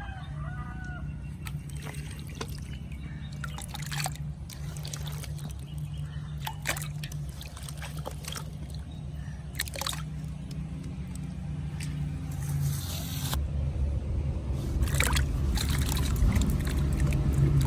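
Water sloshing and trickling in a pot as cut potato pieces are added for parboiling, with occasional sharp knocks. A low rumble builds in the second half.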